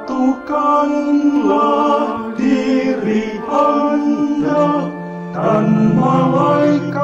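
A closing hymn sung in Indonesian, a Lenten hymn about Jesus fasting forty days and being tempted, with the singing carried over long, held low accompaniment notes.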